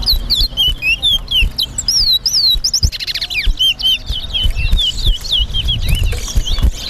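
Towa-towa (large-billed seed finch) singing a rapid string of short, sweeping whistled notes with a quick trill about three seconds in. It is a contest song of the kind the counter tallies one by one.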